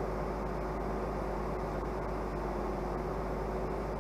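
Excavator's diesel engine running steadily, with a constant low hum and a steady tone over it.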